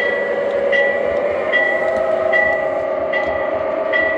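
MTH RailKing New York Central Aerotrain model's onboard sound system playing departure sounds: a locomotive bell rings steadily, about five or six strokes over four seconds, over a steady diesel engine drone.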